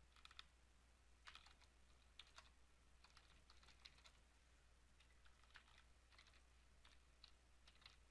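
Faint computer keyboard typing: irregular clusters of keystrokes with short pauses between them.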